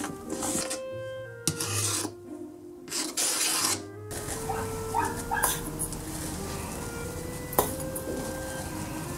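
Silicone spatula scraping whipped cream against a stainless steel bowl and spreading it, in a few rasping strokes in the first half, over soft background music. A single sharp tap comes near the end.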